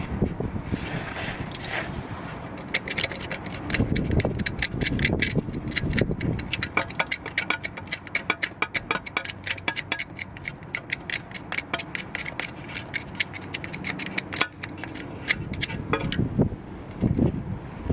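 Hand tools working at a car's wheel hub to undo the 5 mm bolt holding the ABS wheel-speed sensor: fast, uneven metallic clicking through most of the stretch, with a few dull knocks near the start and end.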